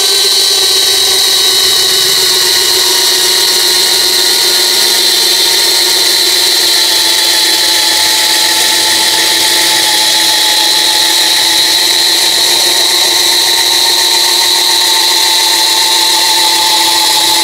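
Kingblue 13 mm brushless cordless drill running steadily under load, boring into a wooden log with a spiral auger bit. A continuous motor whine that dips slightly in pitch in the second half as the bit goes deeper.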